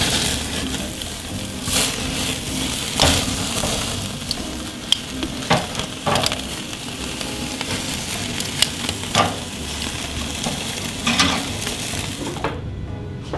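Skirt steak sizzling on a charcoal grill: a steady hiss with scattered sharp pops and crackles. It cuts off suddenly near the end.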